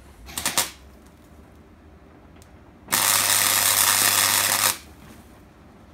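A short clatter under a second in, then electric arc welding: a loud, steady hiss lasting just under two seconds from about three seconds in, as a steel bracket is tack-welded onto the chassis rail.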